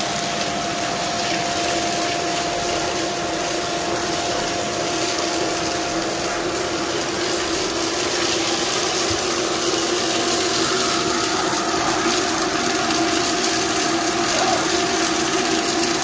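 Corded vacuum cleaner running steadily, its nozzle drawn over carpeted stair treads: a constant rush of air with a steady whine through it.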